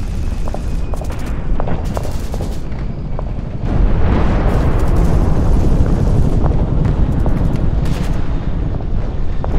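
Loud battle sound effects: a continuous rumble of explosions with scattered gunshots, swelling louder about four seconds in.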